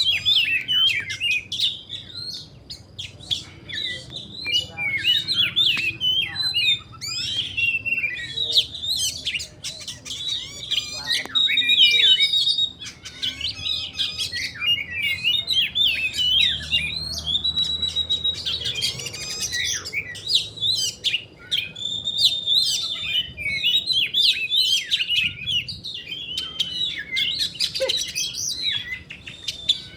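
Caged Oriental magpie-robin (kacer) singing continuously in a long run of varied, quick chirps and warbles, with a few held whistled notes mixed in. This is full, sustained song from a bird that is in good condition and performing.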